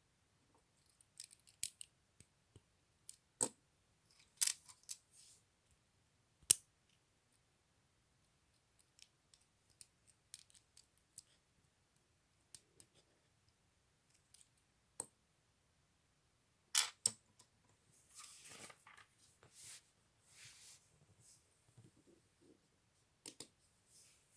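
Plastic LEGO pieces being handled and pressed together: scattered sharp clicks and small knocks, a few louder snaps, then a stretch of soft rustling near the end.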